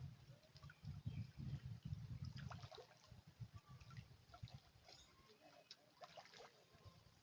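Near silence: a faint low rumble fades out about three seconds in, with scattered soft clicks and faint short sounds throughout.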